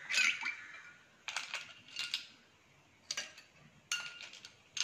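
Ice cubes dropped from a plastic spoon into tall glasses of juice, clinking against the glass and plopping into the liquid, in a series of sharp clinks about a second apart.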